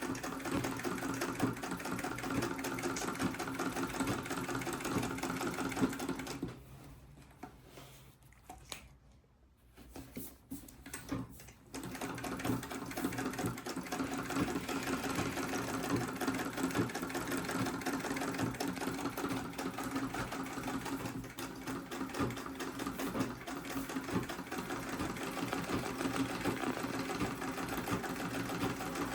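Treadle sewing machine running steadily under foot power, its needle and mechanism stitching at a quick even rate; the machine is freshly oiled. About six seconds in it stops for roughly five seconds, with a few clicks, then starts sewing again.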